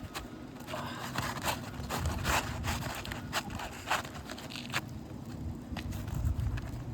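Asphalt shingle being pushed up under the shingle course above, scraping and rubbing in short irregular strokes.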